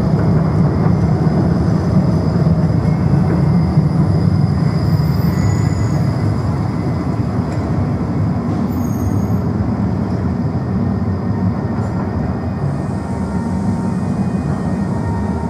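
Škoda low-floor trams running through a tunnel: a steady, loud, low rumble of wheels on rails and traction gear, easing slightly in the second half. Faint, brief high-pitched wheel squeals come about a third of the way in and again just past the middle.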